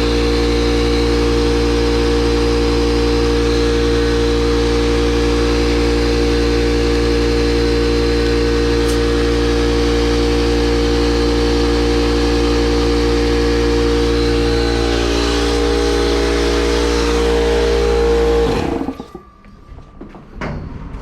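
Air compressor motor running steadily while tyres are pumped up, then cutting off suddenly near the end, followed by a few short clicks.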